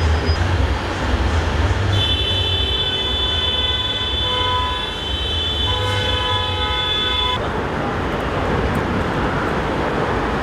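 A horn blown long and steady, several notes sounding together for about five seconds from about two seconds in, then cutting off, over a constant low rumble of traffic.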